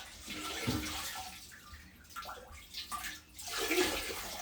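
Shallow leftover water sloshing and splashing in the bottom of a drained toilet tank as it is soaked up with a hand towel, the sound swelling and fading in uneven bursts.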